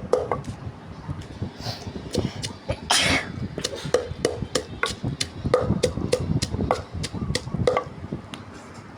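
Kitchen work: irregular sharp knocks and clatter, several a second, with a longer rustling burst about three seconds in.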